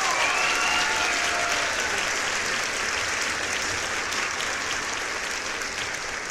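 A crowd applauding, with a few cheering voices that fade out in the first couple of seconds; the clapping then goes on steadily and slowly tapers.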